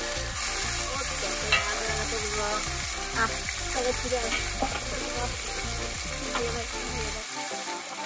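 Garlic-miso-marinated Noto pork sizzling steadily as it fries, with a low droning underneath that stops about seven seconds in.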